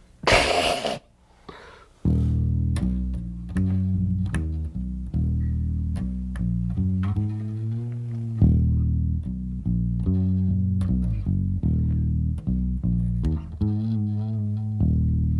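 Electric bass guitar played solo in an improvised piece. A short noisy burst comes at the start, then about two seconds in comes a busy run of low notes, with frequent changes and sharp accents.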